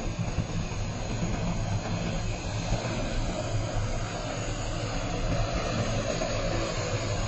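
A manned multirotor drone's propellers hum steadily as it hovers low. The hum grows a little louder toward the end as the craft comes closer.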